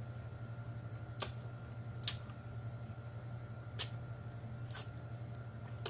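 Wet lip smacks and mouth clicks from eating saucy chicken wings: about four sharp clicks spread over a few seconds, with a steady low hum underneath.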